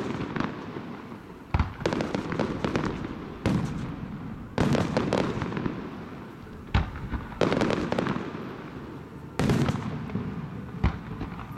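Aerial fireworks shells bursting: about seven sharp booms at uneven intervals, each trailing off in a long rumbling echo.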